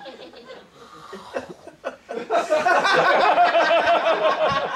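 People laughing: soft chuckling at first, swelling about two seconds in into a loud burst of laughter in pulsing ha-ha rhythm.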